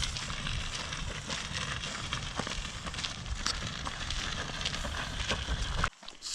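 Ozark Trail universal kayak cart's wheels rolling under a heavy load of kayaks and gear over rough, rocky ground: a steady crackling rumble with scattered clicks and knocks. It cuts off suddenly near the end.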